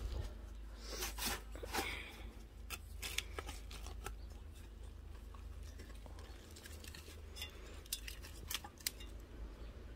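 Hand trowel digging and turning damp compost and straw bedding in a worm farm: irregular rustles and scrapes with scattered sharp clicks, busiest about a second in and again near the end.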